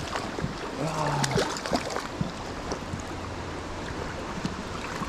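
Creek water running steadily, with scattered small clicks and a brief voice sound about a second in.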